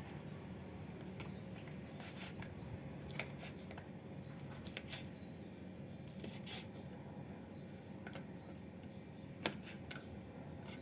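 Scattered light clicks and taps over a steady low room hum, with one sharper click near the end.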